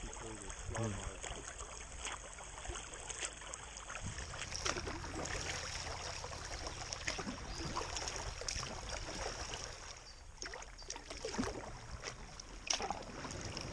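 Kayak paddle strokes splashing and water trickling as the boat glides along a river, with short splashes about every second.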